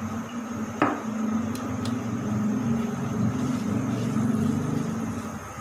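A single knock about a second in, then a spatula stirring and scraping sliced onions in oil in a non-stick frying pan.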